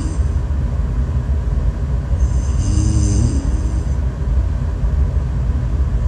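A sleeping woman snoring: a steady low rumble, with one louder, pitched breath in the middle lasting about two seconds.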